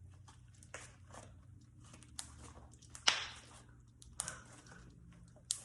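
Hands kneading and stretching homemade slime, giving off irregular sticky pops and crackles, one sharper snap about three seconds in.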